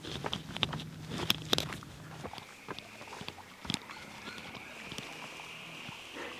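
Footsteps and rustling through vegetation, with many short clicks and crackles. From about two seconds in, a steady high-pitched drone joins them and carries on.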